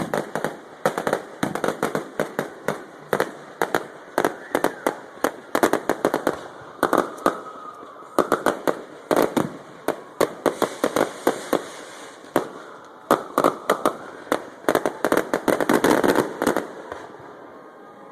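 Fireworks show: rapid volleys of sharp aerial shell bursts, several bangs a second, with brief lulls between volleys and a tail-off near the end.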